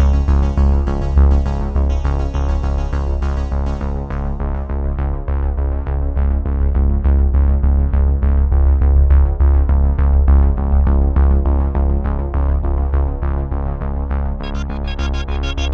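Electronic background music with a heavy synth bass and a steady beat. The treble drops away about four seconds in and comes back near the end.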